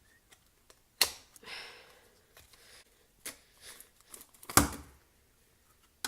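Small plastic items and packaging being handled: two sharp clacks, about a second in and again about four and a half seconds in, with lighter clicks and a short rustle between.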